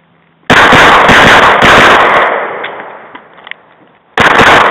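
Semi-automatic pistol fired close to the microphone in rapid strings of shots. The first string starts about half a second in and dies away over the next two seconds, and a second fast string begins near the end. The shots are very loud.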